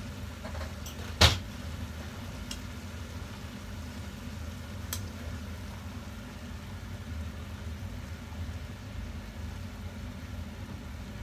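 Steady low hum from a kitchen appliance, with one sharp knock about a second in and a couple of faint ticks after it.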